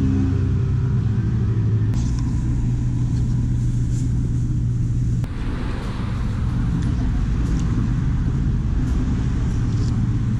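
Steady low mechanical hum and rumble. About five seconds in the even hum gives way to a rougher low rumble, with a few faint ticks along the way.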